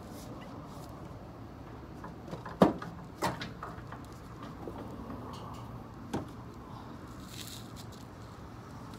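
A few sharp knocks from parts and tools being handled in a car's rear wheel well during rear shock absorber removal. The loudest comes about two and a half seconds in, another just after three seconds and one around six seconds, over a steady low background hiss.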